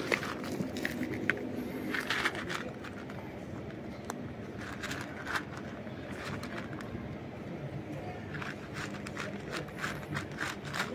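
Cat chewing dry kibble: a run of irregular, crisp crunches.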